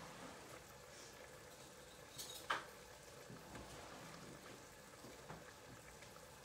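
Faint bubbling of a thick shrimp bisque simmering in a pot on the stove, with a single knock about two and a half seconds in.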